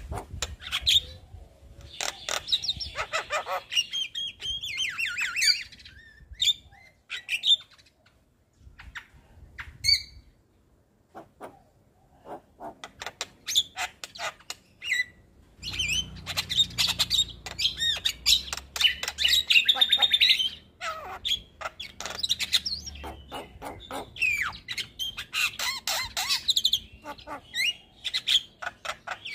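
Javan myna singing a long, varied song of rapid clicks, chatters and warbled whistles. It comes in two busy bursts, with a quieter spell of scattered clicks and short notes between them.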